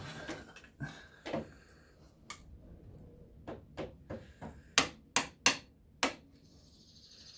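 Hammer tapping the end of a screwdriver held like a drift against the clutch centre of a Honda CB750 K0, metal on metal. A few light taps come first, then four sharper, louder strikes in quick succession near the end.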